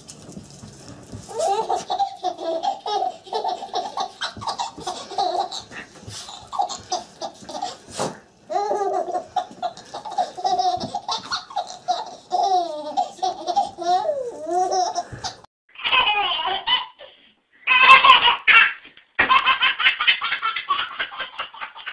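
A baby laughing in long runs of rhythmic giggles; then, after a short break about three-quarters of the way through, another baby's louder, higher-pitched belly laughs in bursts.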